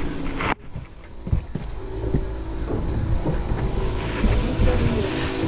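A boat's outboard motors running steadily with wind rumbling on the microphone; the sound cuts out sharply about half a second in and comes back quieter, slowly building again.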